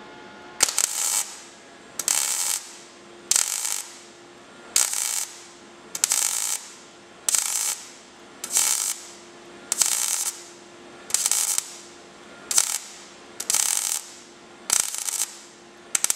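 MIG welder arc crackling on car body sheet metal in a series of short stitch welds: thirteen bursts of about half a second each, roughly one every 1.2 s, the welds kept short to build the seam up without overheating the panel.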